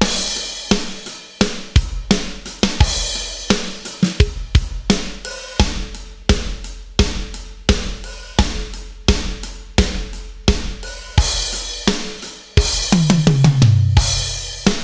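Electronic drum kit playing a steady rock groove at about 86 beats a minute: bass drum, snare backbeat and hi-hat, with crash cymbals on some downbeats. Near the end comes a fill down the toms, falling in pitch.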